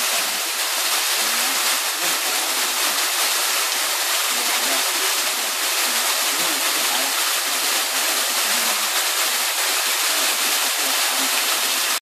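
Waterfall pouring through a hole in a rock overhang and splashing onto a shallow pool: a steady rushing hiss.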